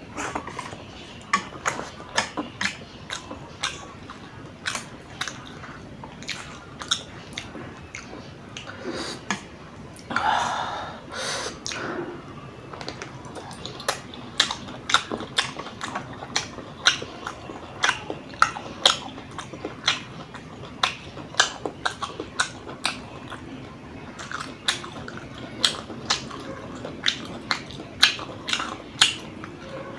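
Close-miked eating sounds: wet chewing and lip-smacking clicks, a few per second, as spicy noodles and sausage are eaten. A longer, louder mouth sound comes about ten seconds in.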